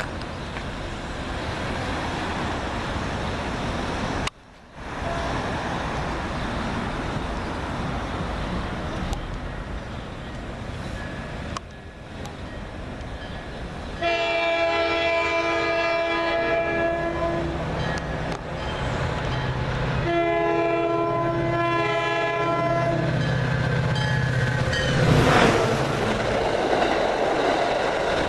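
EMD F40PH diesel locomotive rumbling along, then blowing its multi-chime air horn at full blast in two long blasts, the first about halfway in and the second a few seconds later. A low engine drone comes in under the horn, and the train noise grows louder near the end.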